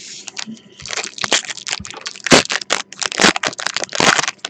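Foil trading-card pack wrapper crinkling and crackling as it is handled and torn open by hand, in a dense run of sharp crackles with the loudest bursts in the second half.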